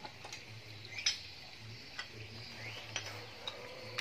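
Scattered light metallic clicks and clinks as tools and parts are handled inside an opened motorcycle engine crankcase, the loudest about a second in.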